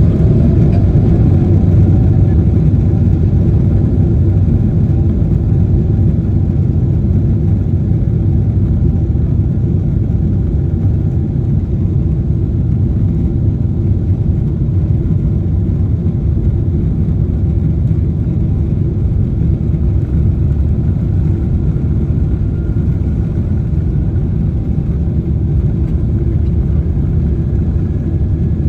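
Steady, loud rumble of a Boeing 747-8i's four GEnx engines at high thrust, heard from inside the passenger cabin, with a faint rising whine in the first second.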